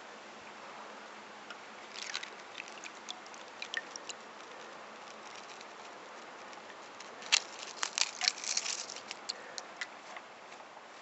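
Thin sheet of ice being snapped and crushed by hand, crackling: a few light cracks about two to four seconds in, then a burst of sharp cracks over a couple of seconds starting around seven seconds in.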